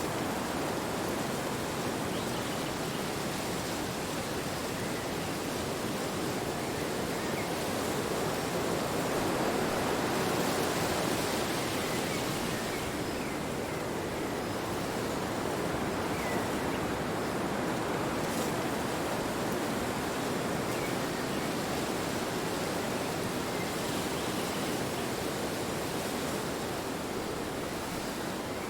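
Wind blowing: a steady rushing noise that swells slightly about ten seconds in, then eases back.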